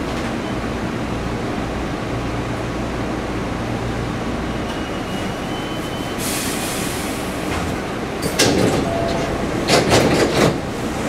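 Hankyu Kobe Line electric train standing at a station platform with its doors open: a steady low hum, a hiss lasting about a second some six seconds in, then a series of sharp knocks and clatters near the end, which are the loudest part.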